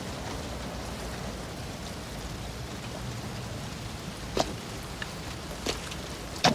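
A steady hiss of background noise, with three short, sharp sounds in the last two seconds.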